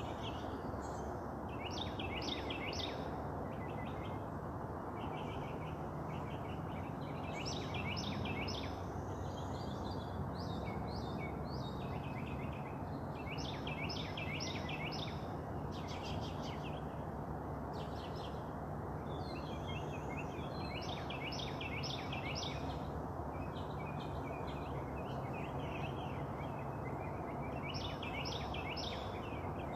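Songbirds singing in short, repeated phrases of quick notes, heard over a steady low outdoor background rumble.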